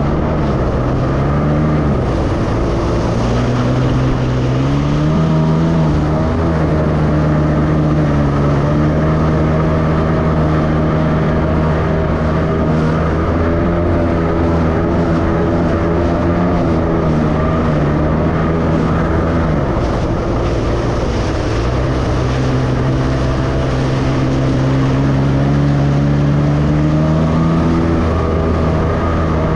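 Jet ski engine running under way over rushing water, its pitch dipping with throttle about a second in and again around the twenty-second mark, then climbing back up.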